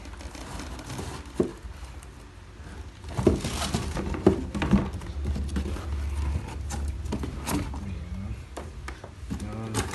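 Cloth drawstring helmet bag being handled: rustling as the cord is loosened and the bag pulled open, with scattered light knocks, louder from about three seconds in.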